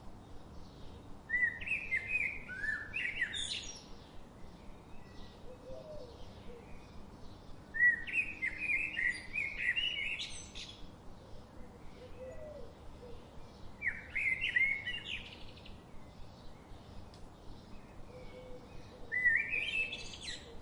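Budgerigars chirping and chattering, in four louder bursts of quick warbling calls a few seconds apart, with softer chirps in between.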